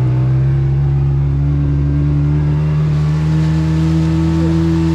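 Speedboat engine running hard, its steady note rising slowly in pitch over the first few seconds and then holding.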